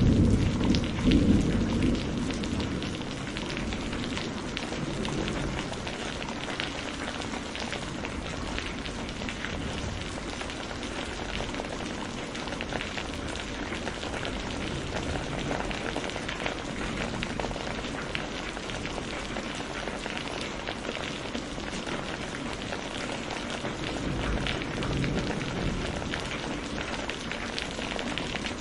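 Heavy rain falling steadily, a dense hiss full of individual drops ticking close by. At the start, a loud low rumble of thunder dies away over the first couple of seconds.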